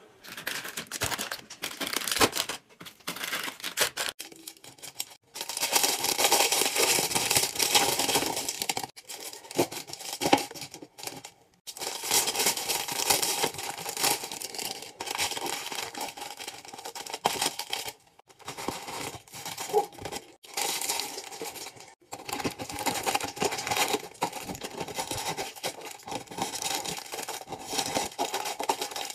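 Plastic candy-bar wrappers crinkling and rustling as wrapped bars are pulled from their packs and handled, in stretches of a few seconds broken by short pauses.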